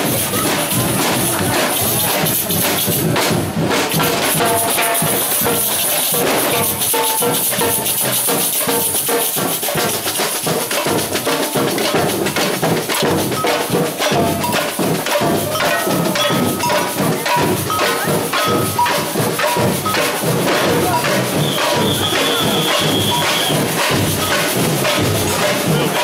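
A procession band's drums and rattling hand percussion playing a steady beat, with a few short held high notes in the second half.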